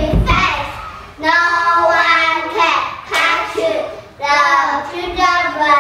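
Young children singing a song together, in phrases with long held notes and short breaks between them.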